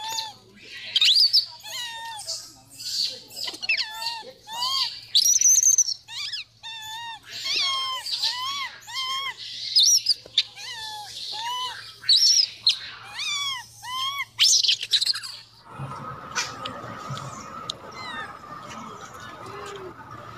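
Infant macaque giving repeated short, high coo calls, each one rising and falling in pitch, about one every half second to a second. About three-quarters of the way through the calls stop and a steady hum with a rougher background takes over.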